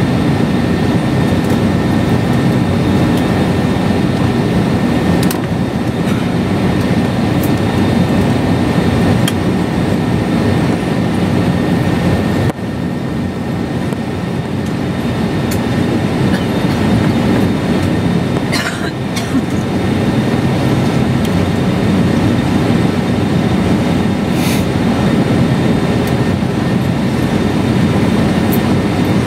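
Steady low rumble inside the cabin of an Airbus A320-232 moving slowly on the apron, heard from a window seat beside the wing, with a faint high whine over it and a few light knocks.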